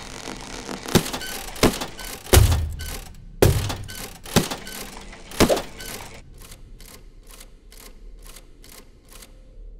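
Cartoon sound effect of glass cracking: a series of sharp cracks at irregular intervals over about five seconds, the loudest about two and a half seconds in. A run of fainter, evenly spaced clicks follows, about three a second.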